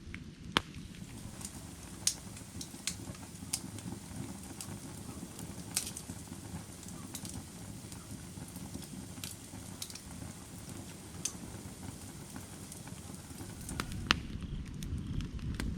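Firewood burning: irregular sharp crackles and pops over a steady low flame noise, which grows louder near the end.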